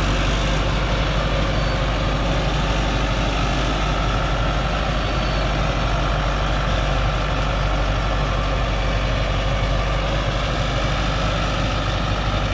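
Diesel engine of a truck loaded with acacia logs, running steadily without revving as it crawls through mud up a forest track.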